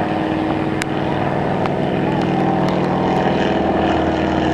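Stearman biplane's radial engine and propeller droning steadily in flight, the sound swelling slightly as it goes.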